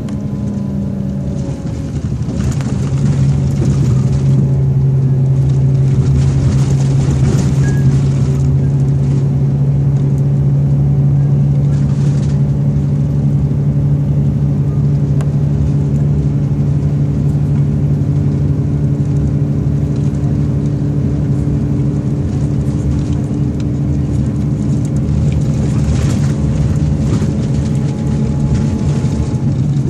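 Scania K420 coach engine droning steadily under way, heard from inside the passenger cabin along with tyre and road noise. The engine note grows louder about two seconds in and then holds steady.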